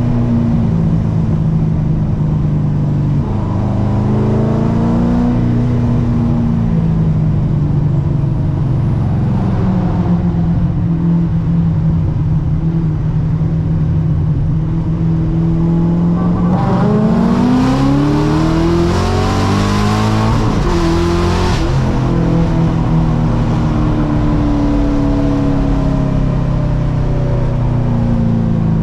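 Supercharged Corvette C6 LS3 V8 running at a steady cruise, then about halfway through revving up hard with a rising pitch and a loud rushing hiss for about five seconds. It then eases back to a steady cruise.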